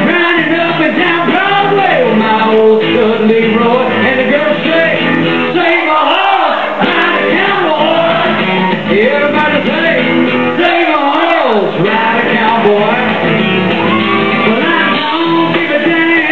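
Live country song: a man singing loudly at a microphone over his strummed acoustic guitar.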